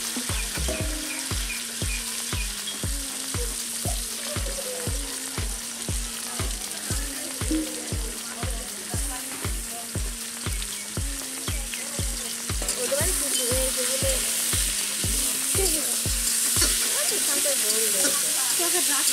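Vegetables and chicken pieces sizzling in hot oil in a steel wok, with a metal spoon stirring and scraping the pan. A steady low beat of background music runs under it, about two beats a second, and stops about 17 seconds in.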